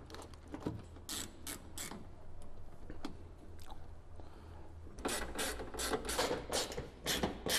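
Hand ratchet clicking as it tightens the headlight's mounting bolts: a few clicks about a second in, then a quicker run of clicks from about five seconds on.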